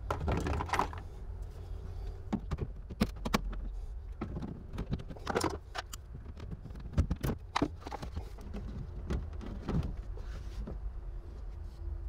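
Irregular sharp clicks and knocks of a plastic trim clip being worked out of a Citroën Berlingo's rear door panel with a hand tool, over a steady low hum.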